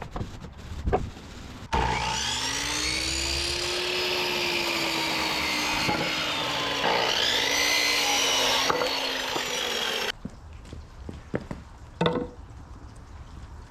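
Handheld electric power tool running under load in two runs, its motor pitch rising as it spins up and then sagging as it bites. It cuts off suddenly near the end, followed by a couple of knocks.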